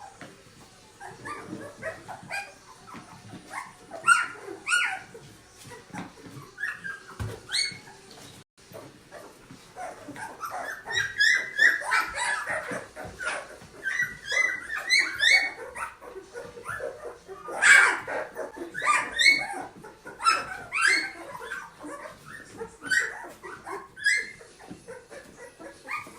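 Newborn Goldendoodle puppies, about twelve days old, whimpering and squeaking, with many short high-pitched cries one after another, growing busier from about ten seconds in.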